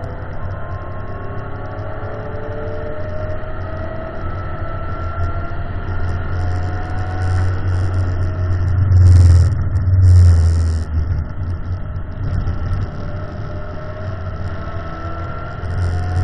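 Ford Mustang's engine under load on a race track, heard from inside the cabin, pulling up through the revs with a deep rumble. It is loudest about nine and ten seconds in, eases off, then builds again near the end.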